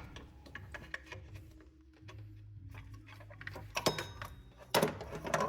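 Scattered, irregular clicks and light metallic knocks of hand tools on engine parts, the loudest two about four and five seconds in.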